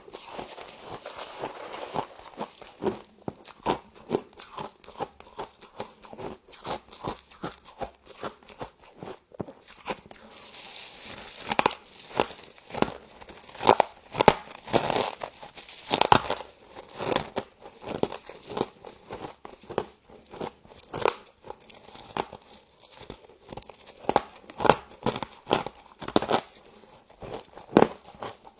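Close-up crunching and chewing of soft frost from a humidifier, a dense run of irregular crisp crackles that grows louder and sharper about halfway through.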